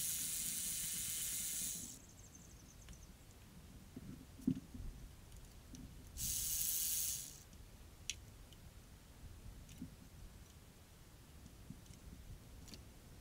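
Cordless electric ratchet running in two bursts, about two seconds at the start and about a second in the middle, spinning out fasteners on top of the engine. Light clicks and knocks of tool handling between the bursts.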